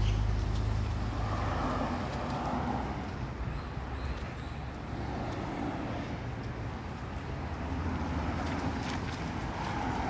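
Street ambience: a motor vehicle's low engine rumble close by at the start, fading over the first second or two, then steady traffic noise.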